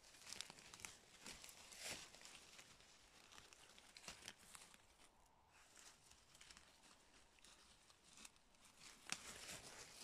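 Faint rustling and crackling of dry grass and fallen leaves as dogs push through the undergrowth. Scattered sharp crackles, a little louder about two seconds in and again near the end.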